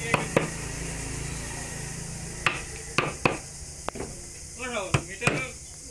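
About half a dozen sharp, irregularly spaced taps of a hammer on a carving chisel cutting into wood.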